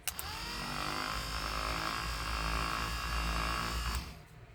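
A restored 1967 Cadillac rear power window motor switching on with a click and running under power. Its whine rises briefly as it spins up, then holds steady for about four seconds before it stops.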